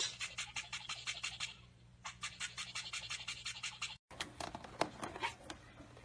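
A toothbrush scrubbing back and forth against a cockatiel's beak: a rapid, even scratching at about eight strokes a second, with a brief pause partway through. After a cut, a few scattered light clicks of a caique's beak pecking.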